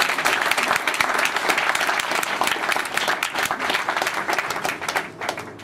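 A room of people applauding, many hands clapping together, dying away near the end.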